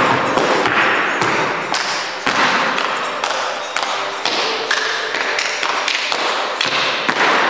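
A solo dancer's folk-dance footwork on a stage floor: irregular sharp stamps and taps, with folk music faintly underneath.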